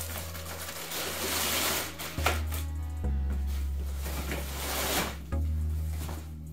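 Background music with a steady bass line changing note every second or two. Two spells of rustling, scraping noise with a few sharp clicks, fitting a cargo liner being pulled from its cardboard box and plastic wrapping.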